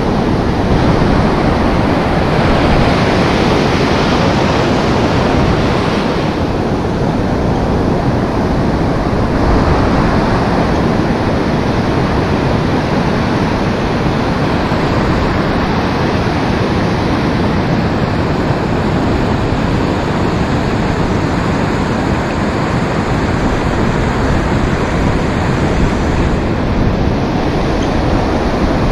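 Surf breaking and washing up a beach, a steady loud rush of water, with wind blowing across the microphone.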